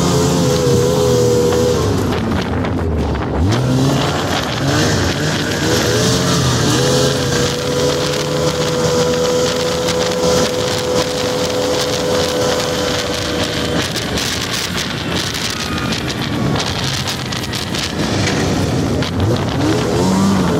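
Snowmobile engine running under way, its pitch dropping and climbing again a few seconds in, holding steady for several seconds, then rising again near the end as the throttle changes.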